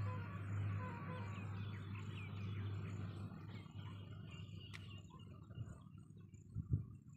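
Steady low electric hum of a borewell submersible pump running just after being switched on, weakening after about three seconds. Birds chirp over it, and there is a short knock near the end.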